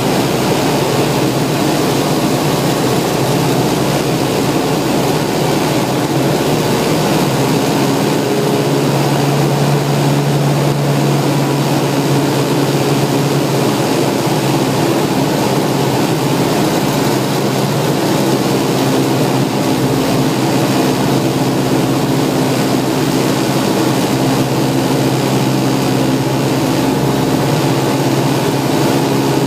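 Small propeller aircraft's engine running steadily and loudly, with its pitch shifting slightly a few times.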